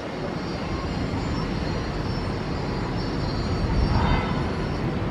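Boeing 777-300ER's GE90 jet engines, a steady low rumble as the airliner rolls out on the runway after landing, swelling briefly about four seconds in.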